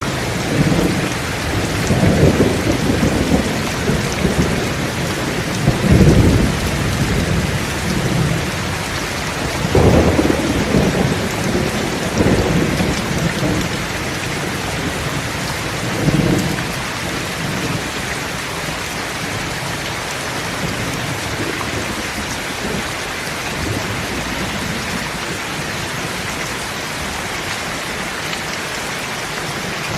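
Rain falling steadily as an even hiss. In the first half there are several short, low rumbles, the strongest about six and ten seconds in. They die away after about sixteen seconds, leaving only the rain.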